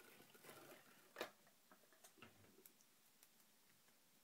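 Faint handling of cardstock and a plastic adhesive dispenser: soft paper rustling with a sharp click about a second in and a few small ticks after it.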